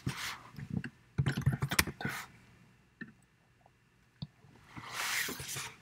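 Computer keyboard typing in a short run and mouse clicks, with a single click a little after four seconds and a soft hiss near the end.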